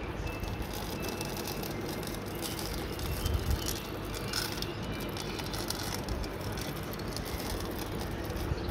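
Rice grains pattering onto a concrete window ledge as they are scattered by hand, a loose run of small clicks that is busiest around three to four and a half seconds in, over a steady low rumble.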